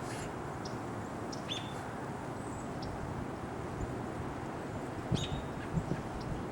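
Steady outdoor background hiss with scattered short, high bird chirps, and a few soft low bumps about five seconds in.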